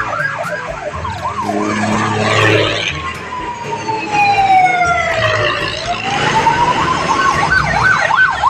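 Electronic siren sound effect. A fast up-and-down yelp gives way to a long, slow wail that falls and then rises again, with higher falling whistles over it, and the fast yelp returns near the end.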